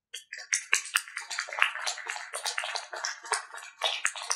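Small audience applauding: many hands clapping in a dense, irregular patter that starts abruptly just after the performance ends.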